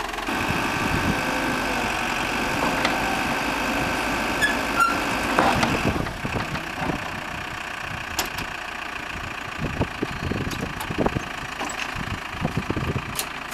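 Engine of a telehandler loader running under load with a steady whine while its grapple bucket is worked; the whine and level drop about six seconds in, leaving the engine running with a few short knocks.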